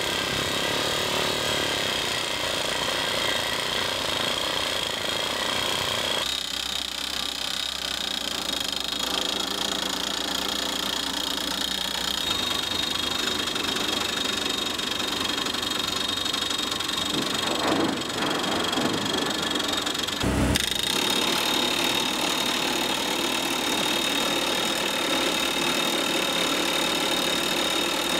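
Comacchio MC 12 crawler drilling rig drilling self-drilling hollow-bar anchors into a shotcrete-faced wall: continuous rapid hammering of the rotary-percussive drill head over the steady running of the rig's engine. The low part of the sound drops away about six seconds in.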